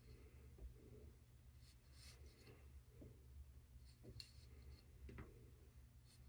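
Near silence: room tone with a low hum and a few faint, light clicks and rustles, about one a second.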